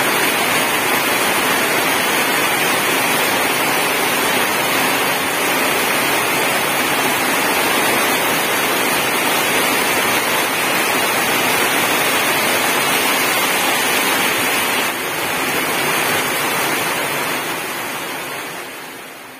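Heavy tropical rain pouring steadily, a dense even hiss; it fades out near the end.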